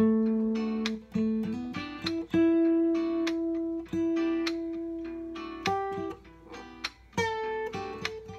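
Acoustic guitar played solo, noodling: single notes and chords plucked and left to ring, with one note sustained for about three seconds in the middle.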